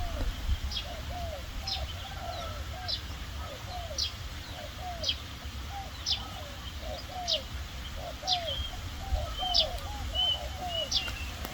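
Dove cooing in a steady run of short, hooked notes, about two a second. A higher-pitched bird chirps sharply about once a second over it, and there is a low rumble underneath.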